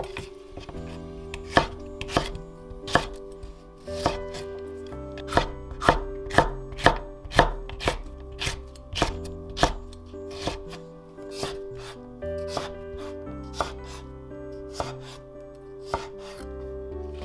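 Kitchen knife chopping on a wooden cutting board, a steady series of sharp knocks about two a second, over soft background music.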